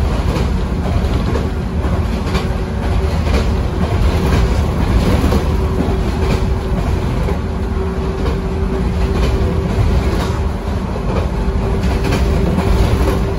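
JR West 113-series motor car heard from inside the cabin, running along the line: low rumble of wheels and running gear under the floor, with a steady whine from the MT54 traction motors and gearing that grows stronger partway through. Repeated clicks of the wheels over rail joints run through it.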